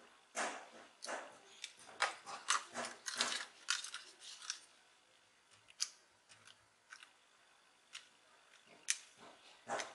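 Dry scratching and clicking of a small plastic headset casing being handled and worked on close to the microphone. A rapid run of short scratches comes in the first four seconds or so, then only a few single clicks.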